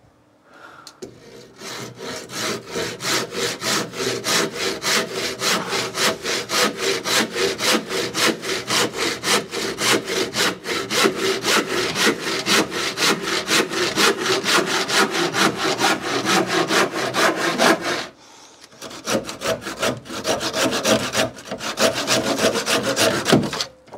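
Hand saw cutting through pine framing timber in quick, even strokes, about four or five a second. The sawing stops briefly, then resumes for a few more seconds before stopping near the end.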